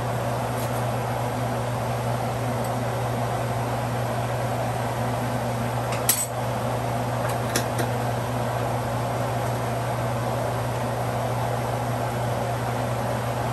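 A steady low mechanical hum with an even rushing noise over it, and two sharp clinks of kitchenware, the first about six seconds in and the second a second and a half later.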